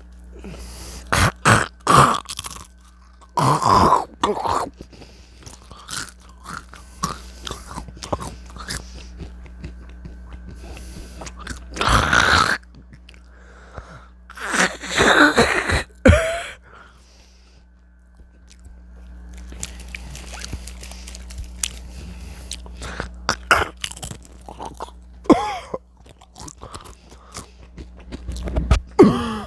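Potato chips being crunched and chewed close to the microphone: a run of small crackling crunches, broken by several much louder bursts, over a steady low hum.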